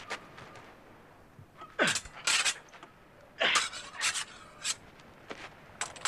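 Men grunting and gasping as they scuffle: a handful of short, breathy bursts, one with a falling pitch, most of them about half a second to a second apart.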